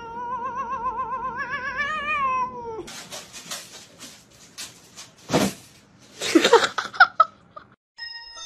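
Domestic tabby cat's long, wavering yowl lasting nearly three seconds, its pitch wobbling quickly and creeping upward before it drops away. After that come scratchy rustling and scraping sounds, with a few louder short bursts near the end.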